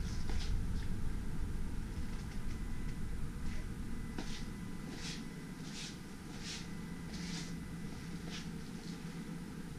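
Soft scuffing footsteps of someone walking through a room, roughly one step every 0.7 s and most regular in the second half, over a low steady rumble and a faint high whine.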